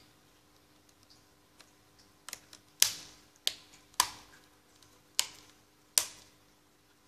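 Plastic back cover of a tablet being pressed back into place, its clips snapping in with about six sharp clicks spread over a few seconds.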